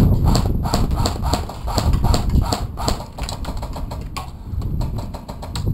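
Footsteps, about three a second, over the first few seconds, then lighter irregular clicks and knocks of gear being handled, over a low rumble of wind and handling on the camera microphone.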